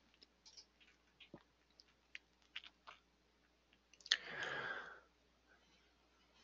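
Faint mouth clicks and lip noises close to a microphone, scattered through the quiet, with a breath about four seconds in that lasts nearly a second.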